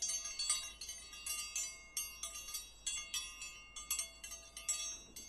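Chimes tinkling: many high, ringing metallic notes struck in quick, irregular succession and left to ring, like wind chimes.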